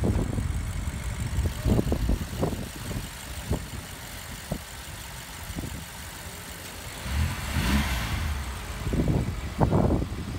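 BMW X6 M's twin-turbo V8 idling steadily, just after a start, heard through the open hood without revving. A brief rush of hiss rises and falls about three quarters of the way in.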